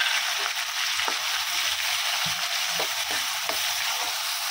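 Finely chopped onion frying in hot oil in a kadai, a steady sizzle, with faint scattered taps of a spoon stirring it.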